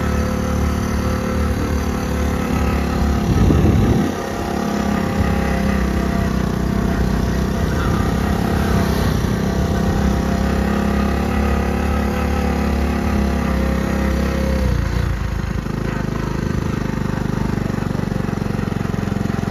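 A motorcycle engine idling steadily. It swells briefly about three and a half seconds in, and its note changes about fifteen seconds in.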